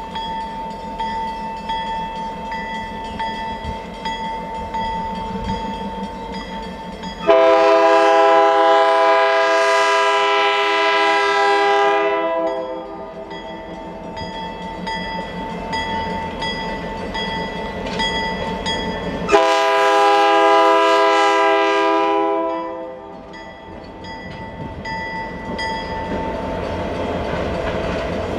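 Diesel locomotive hauling a passenger train, sounding its air horn in two long blasts of a several-note chord, the first about seven seconds in and the second about nineteen seconds in. Engine and rail noise run underneath and between the blasts.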